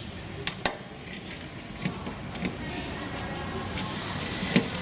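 Small scattered clicks and taps of a screwdriver and wire working a screw terminal block, a handful of sharp ticks spaced irregularly. A faint steady high tone comes in about halfway.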